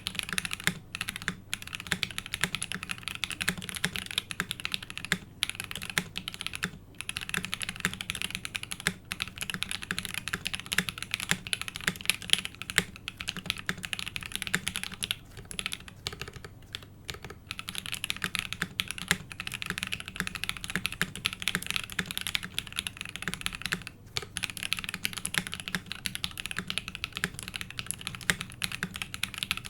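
Typing on a Mode SixtyFive mechanical keyboard with lubed 67g Tangerine linear switches on a brass plate: a fast, continuous clatter of keystrokes with a few short pauses.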